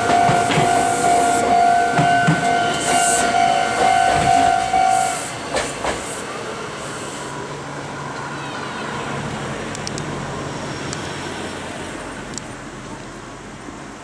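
The last cars of a Meitetsu 3100-series train roll over the level crossing, wheels clicking over the rail joints, while the crossing's electronic alarm bell rings. About five seconds in, the bell cuts off as the train clears the crossing, and only a quieter background hum is left.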